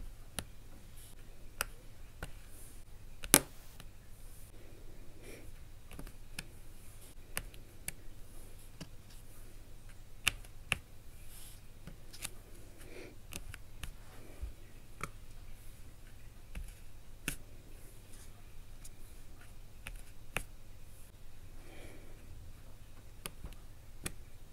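Diamond painting pen pressing round drills onto the sticky canvas: light, irregular clicks and pops, with one sharper click about three seconds in.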